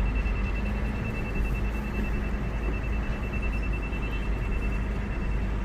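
Hino truck's diesel engine running with a steady low rumble, heard from inside the cab, with a thin high-pitched buzzer-like tone sounding without a break over it.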